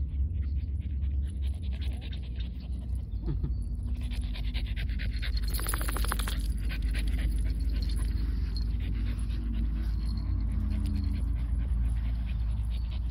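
French bulldog panting in quick rasping breaths, denser and louder for a stretch about five to six seconds in, over a steady low rumble.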